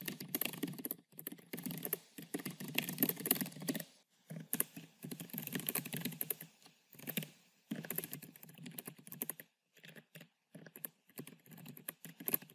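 Computer keyboard being typed on in quick runs of keystrokes, with short pauses between words. The keystrokes thin out to sparser, separate clicks in the last few seconds.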